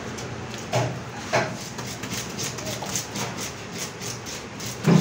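A knife working through a grey mullet on a wooden chopping block, with three short sharp knocks, two in the first second and a half and a louder one near the end, over a steady background noise.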